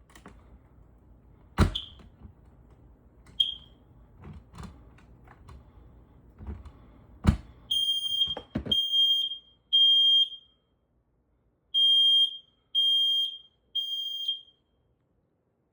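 Smoke alarm being tested: clicks and knocks as it is handled, two short high chirps in the first few seconds, then its high-pitched alarm beeps in the temporal-three pattern, three beeps, a pause, three more.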